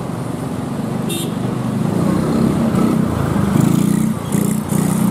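Slow road traffic passing close: motorcycle and car engines running, growing louder toward the middle with a short dip near the end. A brief high hiss about a second in.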